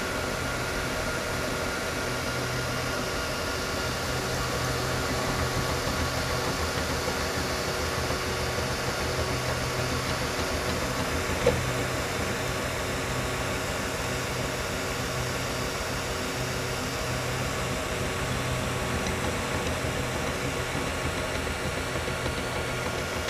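Flsun i3 3D printer running a print: a steady whir of its cooling fans with the hum and whine of its stepper motors, the low hum coming and going as the print head moves. One short click about halfway through.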